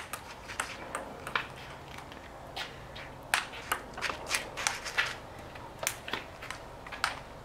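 Ping-pong rally: the ball knocking off paddles, the tabletop and the concrete ground, a string of sharp, irregular clicks, some in quick pairs.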